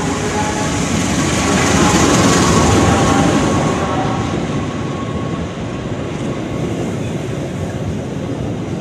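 A passenger train hauled by a CC 206 diesel-electric locomotive passing close by, a dense rush of the locomotive and its coaches running on the rails. It swells to its loudest about two to three seconds in, then settles to a steady run as the coaches go by.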